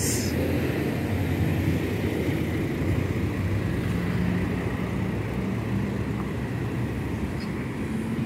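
Steady road traffic: cars and vans driving past, a continuous mix of engine and tyre noise.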